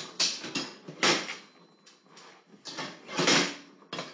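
An English Springer Spaniel rummaging on a kitchen counter and gas hob, nosing and pawing at pots: a series of short, noisy scrapes and knocks, about four of them.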